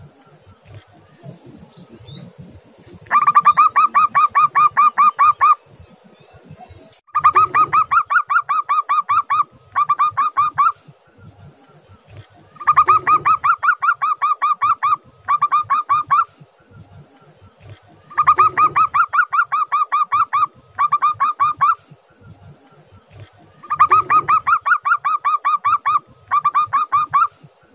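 Zebra dove (perkutut) singing: rapid runs of staccato cooing notes. Each phrase is a long run followed by a shorter one, and the phrases repeat about every five seconds.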